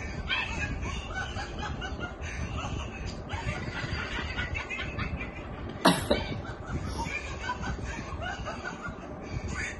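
A man yelping and crying out in pain, mixed with snickering laughter, with a single sharp crack about six seconds in.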